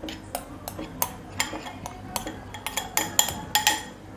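Steel spoon scraping and knocking against a glass bowl and a stainless-steel bowl as ground peanuts are emptied out: a quick, irregular run of clinks and taps, busier in the second half.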